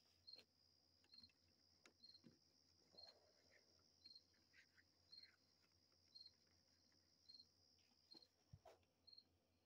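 Faint night insects: crickets chirping in short repeated chirps about once a second over a steady high-pitched insect trill, with a few soft clicks and knocks of handling.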